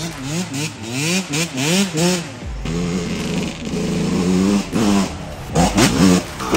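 Dirt bike engine revving in a quick run of rising and falling sweeps, then holding a steady high note for a couple of seconds, with another rev near the end.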